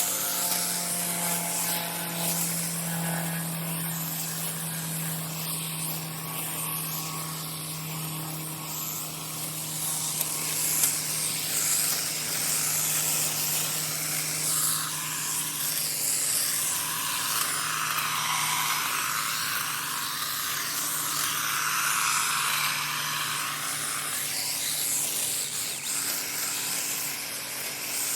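Battery-powered Stihl KMA 130R driving extension hedge shears at full speed: a steady electric motor hum with the rustle and hiss of grass being cut, the rustle swelling through the middle stretch.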